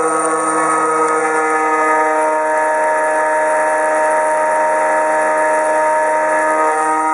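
Background music of long held chords that change a few times, over a steady hiss.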